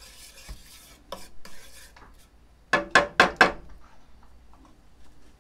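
Wooden spatula stirring and scraping melting brown sugar and oil in a metal pan. About three seconds in there are four loud, quick sounds in a row.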